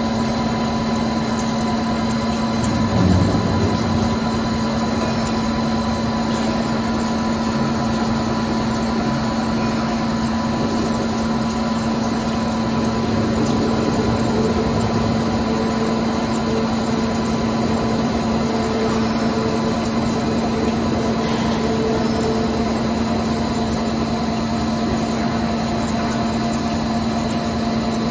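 CNC lathe machining a part under flood coolant: a steady mechanical hum with several held tones over the hiss of the spray, swelling briefly about three seconds in.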